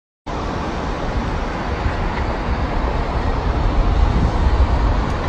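Steady rushing outdoor noise with a heavy, fluctuating low rumble, starting suddenly just after the beginning.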